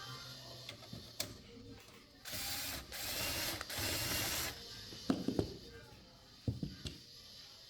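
Screwdriver backing out the power supply's mounting screws on the back of a PC case: three short rasping spells of about half a second each, then a few sharp knocks of metal parts being handled.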